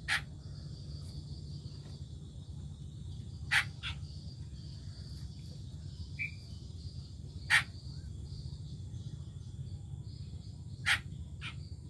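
Jalak starling giving short, sharp calls every few seconds, six in all, two of them in quick pairs, with one small chirp near the middle. A steady low hum runs underneath.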